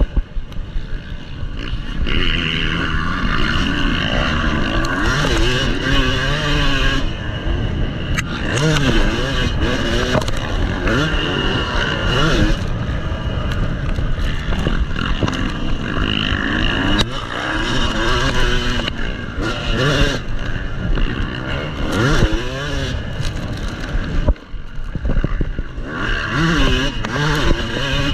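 Dirt bike's engine revving hard and falling back again and again as the rider accelerates, shifts and rolls off through the track's corners and jumps, heard from the rider's own bike. The engine note briefly drops away once, near the end.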